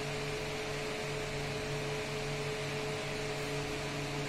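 Steady room hum with an even hiss and a few constant tones in it, unchanging throughout.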